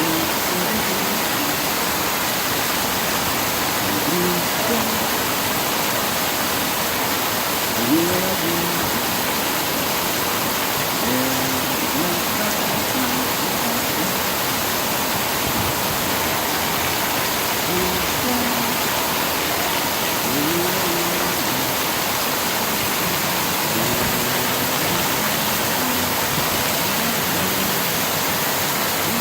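Heavy rain falling steadily, a dense, even hiss, with faint distant voices now and then.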